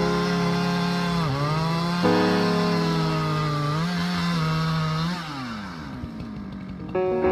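Chainsaw engine running at full throttle through a cut, its pitch dipping briefly twice as it bogs under load. About five seconds in, the throttle is released and the engine winds down.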